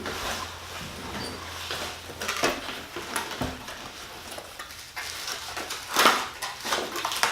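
Hard plastic parts of a Ryobi P718K stick vacuum being handled and set down during unboxing: scattered knocks and clatter, the loudest knock about six seconds in.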